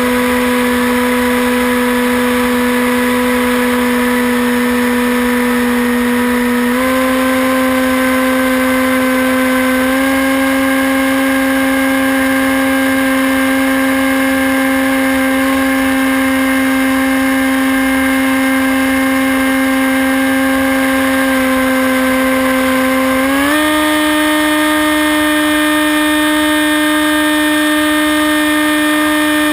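Hawk Sky RC plane's electric motor and propeller whining steadily, heard from on board. The pitch steps up three times as the throttle is opened, with the biggest jump about three quarters of the way through.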